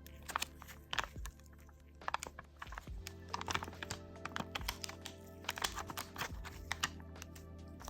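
Light, irregular clicks and taps of small metal tools on smartphone parts during a phone motherboard swap, over steady background music.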